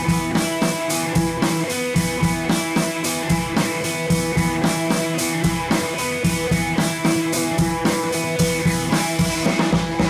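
Background music with a steady drum beat.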